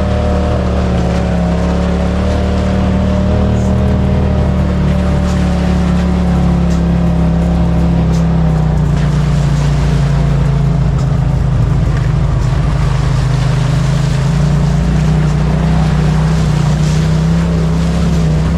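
Vehicle engine running steadily under a constant load. Its pitch dips a little about halfway through and rises again near the end.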